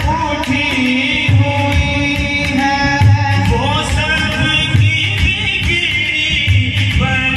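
A naat, a devotional song, sung with a wavering melodic voice over a low drum beat that falls about once a second.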